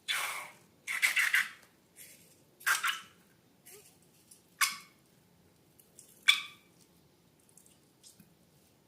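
A string of short, wet, hissy bursts from slime and balloons being handled, one every second or two, the loudest about six seconds in.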